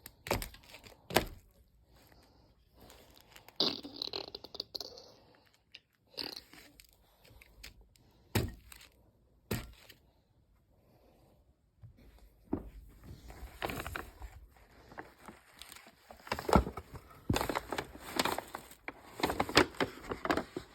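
Toys being handled and moved about: scattered sharp knocks and thumps with scraping, busier in the second half.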